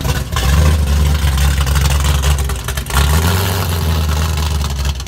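Car engine revved hard twice as the car pulls out, each rev lasting about two seconds, with a deep, loud exhaust note.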